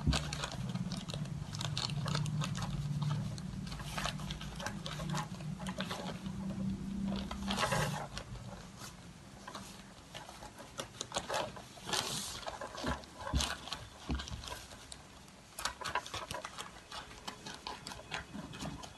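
Thin polythene bag crinkling and rustling as it is handled and cut with scissors, in scattered short crackles and snips. A low steady hum runs under the first eight seconds or so, then stops.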